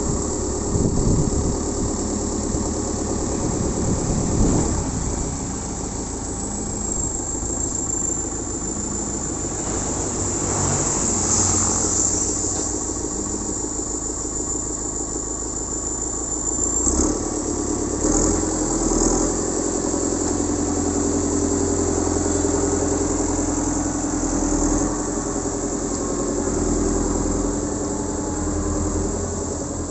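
Terex 970 Elite backhoe loader's diesel engine running steadily. A thin high whine comes in for several seconds in the middle, and a little past halfway the engine note changes and gets heavier.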